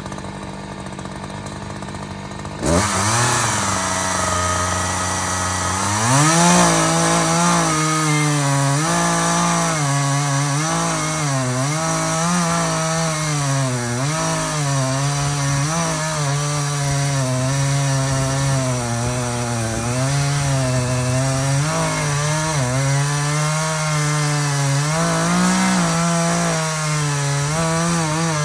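Two-stroke chainsaw throttling up about three seconds in, then cutting through wood. Its engine pitch keeps dipping and recovering as the chain bites into the cut.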